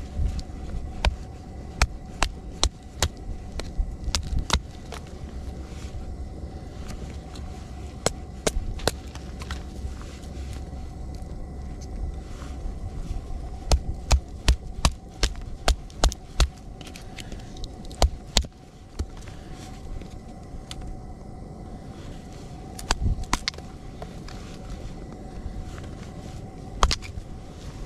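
Batoning firewood: a wooden baton knocking on the back of a blade driven into a log, sharp knocks in irregular runs, with a quick burst of about a dozen a few seconds past the middle.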